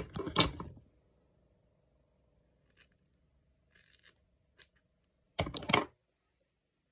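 Scissors cutting through a lock of hair: a few faint short crunchy snips in the middle. A loud brief rustle of hands and hair at the start and again about five and a half seconds in.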